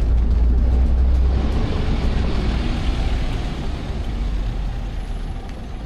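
City street traffic: a motor vehicle's engine rumbling close by, with tyre and engine noise that swells and then gradually fades as it goes past.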